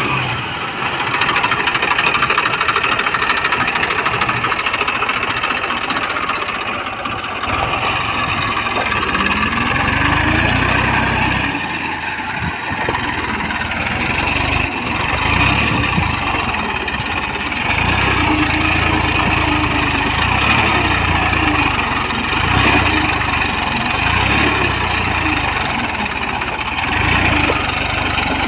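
Massey Ferguson 241 DI tractor's three-cylinder diesel engine running under load in deep wet mud, its note rising and falling several times as the driver works the throttle.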